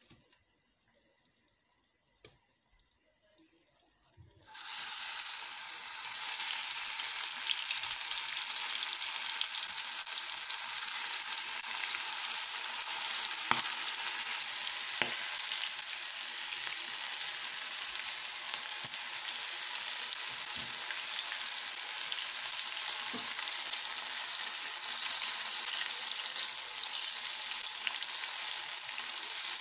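Near silence for a few seconds, then a steady sizzle starts suddenly about four and a half seconds in, as masala-coated bitter gourd slices deep-fry in hot oil in a pan, with a few faint ticks.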